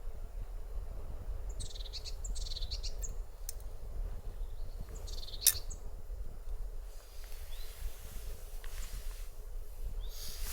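Wind rumbling on the microphone under birds calling: a few short high chirps and several brief bursts of high, rapid notes. A single sharp click about five and a half seconds in.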